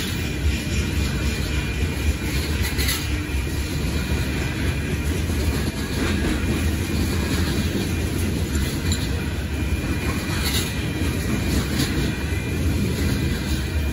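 Freight cars of a gypsum train rolling through a grade crossing: a steady low rumble of wheels on rail, with a few sharper clacks from the wheels crossing joints.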